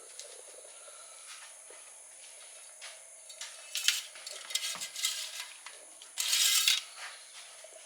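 Engine dipstick being handled during an oil level check on a stopped engine: a few light metallic clicks and clinks, then a longer rasping scrape about six seconds in.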